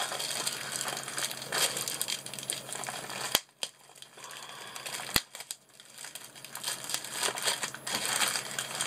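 Plastic wrapping crinkling around a rolled diamond-painting canvas as it is handled and pulled open. There are two sharp clicks near the middle and a quieter stretch between them.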